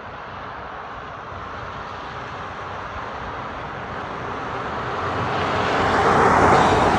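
A truck approaching and passing by, its engine and tyre noise swelling steadily to a peak near the end and then easing, with no horn sounded.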